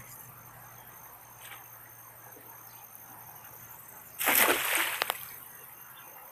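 A cast net thrown over a shallow stream hits the water with a brief splash about four seconds in, followed by a couple of light clicks.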